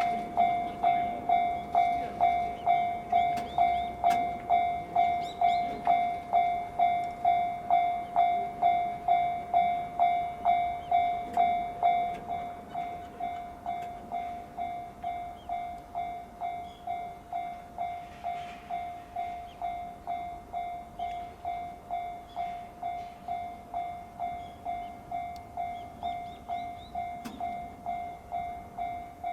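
Japanese level crossing's electronic warning bell ringing in an even, repeating ding a little under twice a second. It drops in volume about twelve seconds in and keeps ringing at the same rate.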